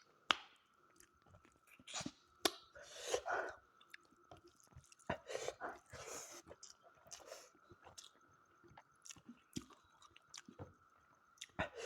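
A person chewing and biting food close to the microphone: short wet smacks and clicks with brief crunchy bursts, in irregular clusters.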